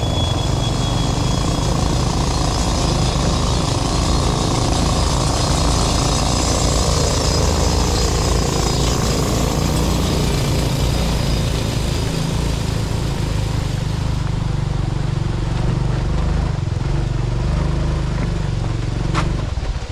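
Honda 125cc motorbike riding over a loose gravel and rock track, its small engine running under heavy wind buffeting on the camera microphone, with stones rattling. One sharp knock comes near the end as the underside scrapes a rock.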